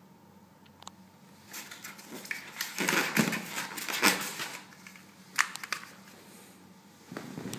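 A pistol being pulled out of a cut-foam insert in a cardboard box: foam and cardboard rustling and scraping for a few seconds, then a single sharp click.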